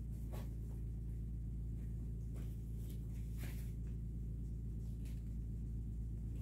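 A steady low electrical-sounding hum, with a few faint rustles and taps as a pizza slice is handled over a cardboard pizza box and set on a paper plate.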